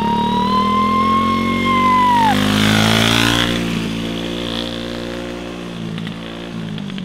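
Honda CG 125 Today single-cylinder motorcycle ridden past in first gear: its engine note grows as it approaches, is loudest about three seconds in as it passes, then drops slightly in pitch and fades as it rides away. A thin whistling tone sounds over the first two seconds and dips at its end.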